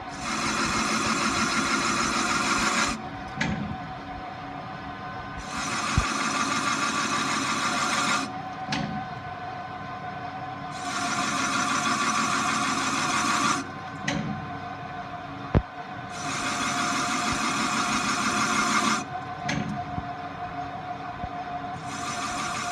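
A machine tool cutting a turbocharger housing. A steady whine runs throughout, and loud, hissing cutting passes of about three seconds come back every five seconds or so, with a few sharp clicks between them.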